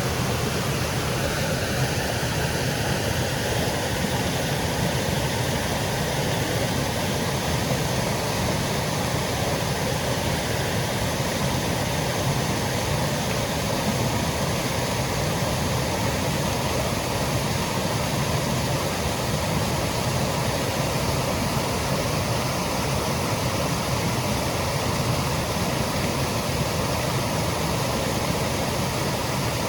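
Woodland waterfall cascading, a steady rushing of falling water. A faint steady hum enters about a second and a half in and climbs slowly in pitch.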